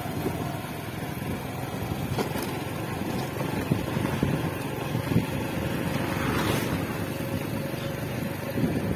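Motorcycle engine running steadily while riding slowly along a rough dirt track, with a few short knocks as the bike rides over bumps.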